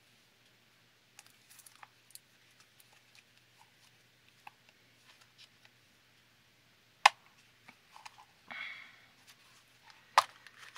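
Plastic gashapon capsule being handled and worked open: faint scattered ticks and scrapes of the plastic shell, a short rasp about eight and a half seconds in, and two sharp clicks, about seven and ten seconds in.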